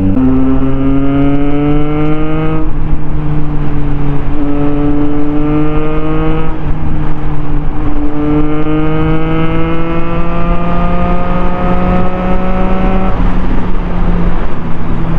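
Triumph Trident 660 inline-three motorcycle engine accelerating hard through the gears. The engine note rises in three pulls with short breaks at the upshifts, over steady wind rush.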